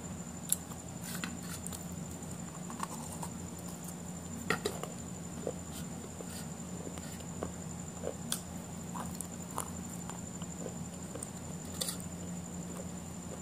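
A person chewing food, with soft clicks and crunches at irregular intervals over a steady electrical hum and a faint high whine.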